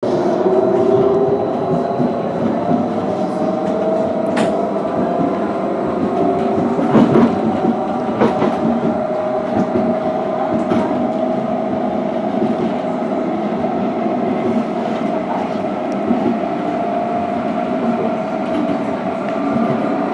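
Edinburgh tram (CAF Urbos 3) heard from inside the passenger saloon while running: a steady rumble of wheels on rail under a motor whine that rises a little in pitch over the first several seconds, then holds steady. A few sharp clicks sound along the way.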